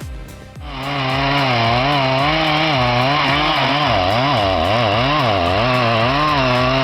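Stihl MS 650 91cc two-stroke chainsaw running, starting loudly about half a second in. Its pitch swings up and down several times in the middle as the throttle is worked, then holds steady.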